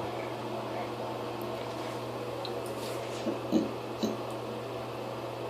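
Three short, soft throat or mouth sounds from a person, about three and a half to four seconds in, over a steady low hum.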